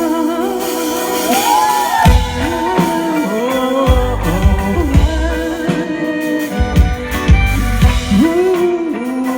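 Live pop-rock band music between sung lines of a song, with drums and bass under a gliding melody line.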